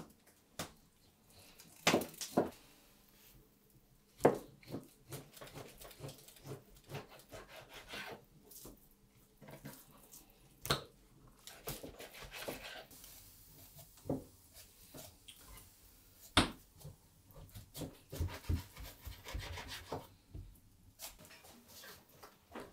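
Kitchen knife cutting raw meat on a wooden cutting board: a few sharp knocks as the blade meets the board, with softer rubbing and scraping of the blade through the meat between them.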